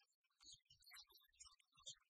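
Near silence, with only faint scattered crackly fragments.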